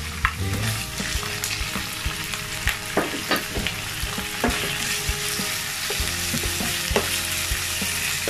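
Raw chicken pieces sizzling in hot oil with browned garlic and onion in a nonstick wok. A slotted wooden spatula knocks and scrapes against the pan in short, irregular clicks as the chicken is pushed in and stirred.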